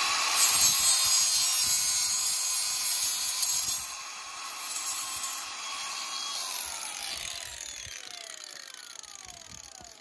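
Angle grinder cutting into the ATV plow's steel winch cable, which has worn through from running back and forth. About four seconds in the grinding load comes off, and from about six and a half seconds the motor's whine falls away steadily as the disc spins down.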